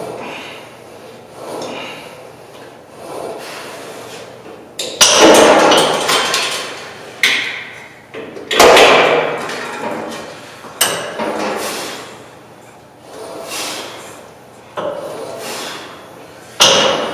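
Cable machine weight-stack plates clanking down, about six sharp metallic hits a few seconds apart, each ringing briefly, as single-arm cable reps are done.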